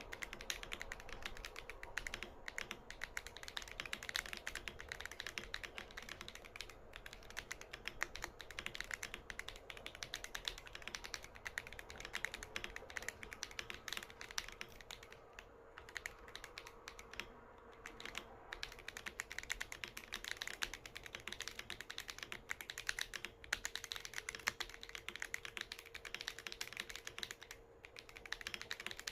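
Continuous fast typing on a James Donkey A3 mechanical keyboard with stock, unmodified Duhuk Bitter Tea Purple switches: a dense stream of key clacks with a few brief pauses.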